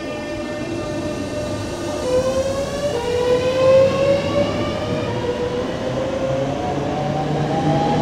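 Southeastern electric multiple unit pulling out along the platform. Its traction motors whine in several tones that start rising in pitch about two seconds in as it picks up speed, over the rumble of wheels on track.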